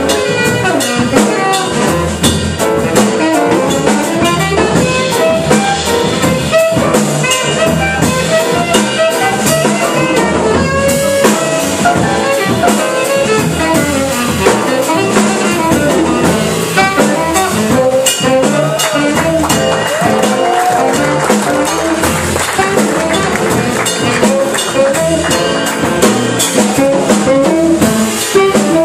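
Live small-band jazz: a saxophone plays the lead line over double bass and drum kit, continuous throughout.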